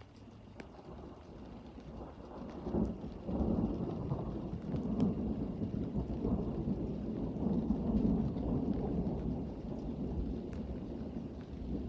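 A low, rolling rumble that swells over the first few seconds and then rolls on unevenly, with a few faint ticks.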